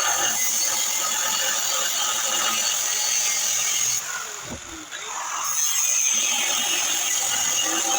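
Hand-held grinder working metal with a steady, hissing grind, enlarging a hole in steel. About four seconds in, the grinder is let off and its motor winds down, then it spins back up and carries on grinding.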